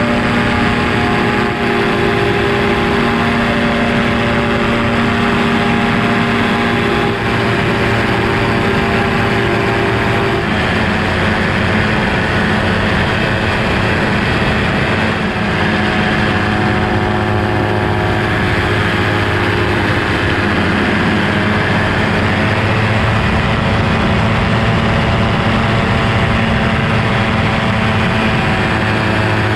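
Quicksilver ultralight's engine and propeller droning steadily in flight, with wind rushing past the open airframe. The engine note shifts slightly about ten seconds in, as with a throttle change.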